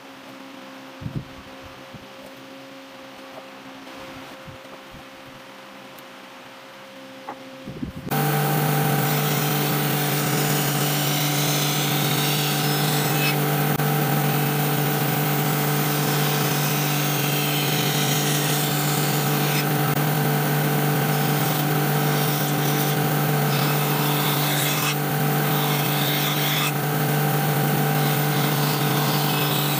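A few faint clicks and taps of hand work on a wooden board. About eight seconds in, a band saw comes in loud and runs steadily, its blade cutting through a thick plank along a curved line over a constant motor hum.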